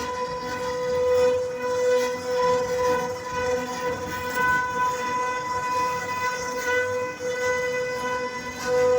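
CNC router spindle whining at a steady high pitch while carving teakwood, its loudness swelling and easing as the bit cuts.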